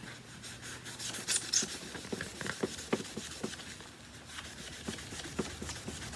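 Hand scrubbing paint marks off the body and rubber bumper of a Kenmore upright vacuum: a faint scratchy rubbing with small irregular ticks and knocks.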